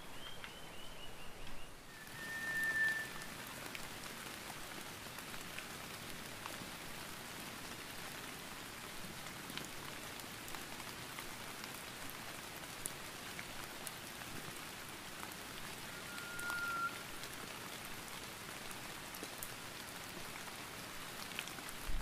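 Steady rain falling, an even hiss dotted with small drop ticks. A bird gives a short falling run of notes at the start, then two brief clear whistles, one about two and a half seconds in and one about sixteen seconds in.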